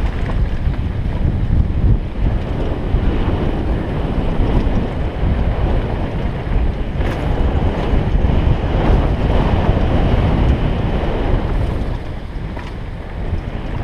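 Wind buffeting a helmet-mounted camera's microphone on a fast mountain-bike descent, mixed with the rumble of tyres over a rocky dirt trail. A few sharper knocks come through, about seven seconds in and again near the end.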